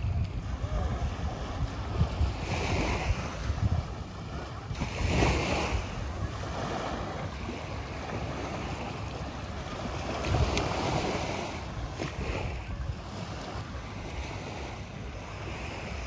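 Small waves washing onto a sandy beach, with wind rumbling on the microphone.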